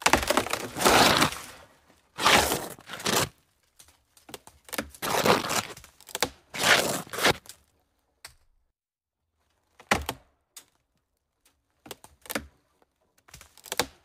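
Soil crunching and crumbling as mud-caked plastic toy vehicles and plants are dug and pulled out of it by hand, in scraping bursts a second or so long. In the last few seconds only scattered short clicks and knocks are left.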